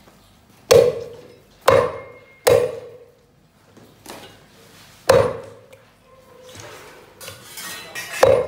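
Cleaver chopping softshell turtle meat and shell on a thick wooden chopping block: five sharp chops at uneven intervals, each with a short ring, and a softer scraping just before the last one.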